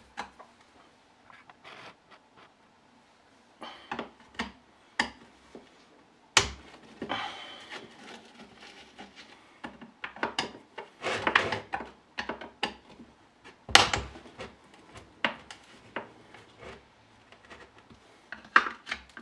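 Hand work on a concrete vibrator's parts: scattered clicks, knocks and stretches of scraping and rubbing, with two sharper knocks about six and fourteen seconds in.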